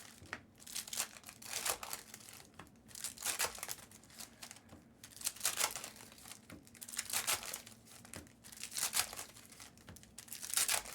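Foil wrappers of 2024 Panini Optic football card packs crinkling and tearing open in repeated short bursts.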